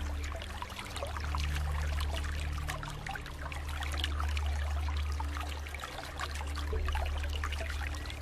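Flowing water trickling and splashing continuously, gently swelling and easing every couple of seconds, over a steady low hum.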